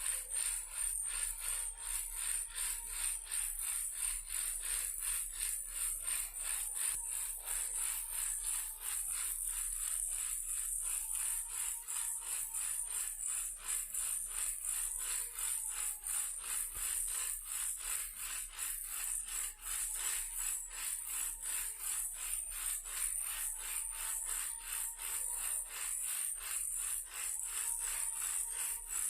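Toy car rattling steadily, like a shaken baby rattle or maraca: a fast, even train of sharp clicks, about four a second.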